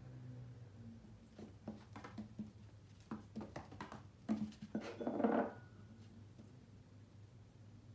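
Scottish Fold kitten's paws pattering and thumping on a wooden floor as it jumps and pounces at a wand toy, a series of short knocks with a louder scuffle about five seconds in.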